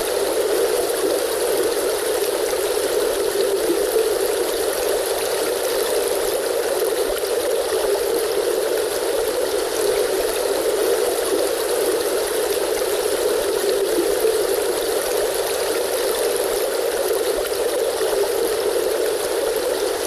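River stream flowing steadily: an even rush of water, unbroken and without any single splash standing out.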